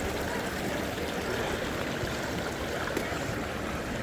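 Creek water running over rocks in a steady rush.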